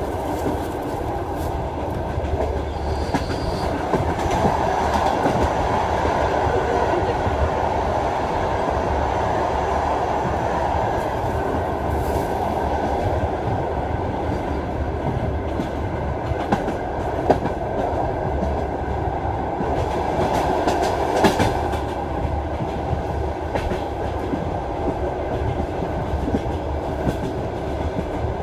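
Train wheels clattering over the rail joints: a steady rumble of the running train with sharper knocks at uneven intervals.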